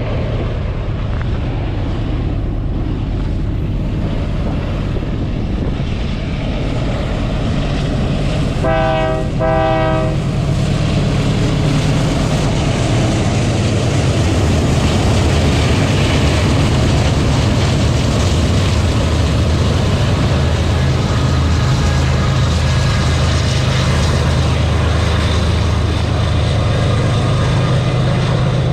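Diesel freight locomotives running steadily under load as a train passes. Their horn sounds two short blasts about nine seconds in.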